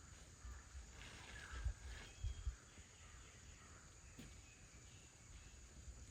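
Quiet outdoor background: irregular low rumbles, with a few faint short high chirps near the start. No chainsaw is running.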